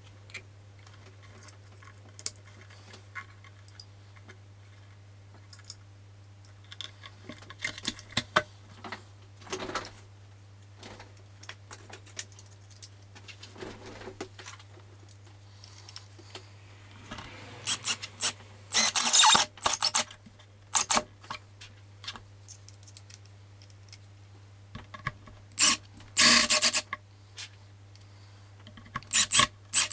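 Hand work on a loudspeaker at a workbench: scattered small clicks and taps of parts and tools being handled, then several short, harsh scraping or rasping strokes in the second half, with a low steady hum underneath.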